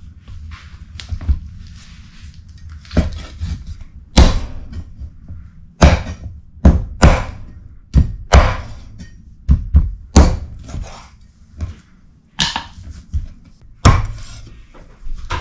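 A run of heavy chopping thunks, struck irregularly about once a second with softer knocks between them.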